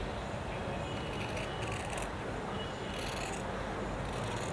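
Scissors cutting through folded dress fabric in several short snips, about one a second.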